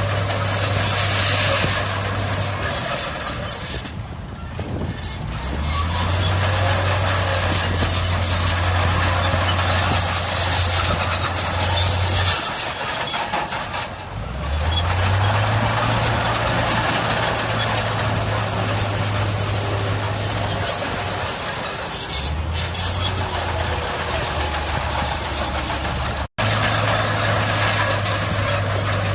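Heavy diesel earthmoving machinery running, a low engine drone that falls away and then climbs back up in pitch as it revs up, twice, over steady mechanical clatter and hiss.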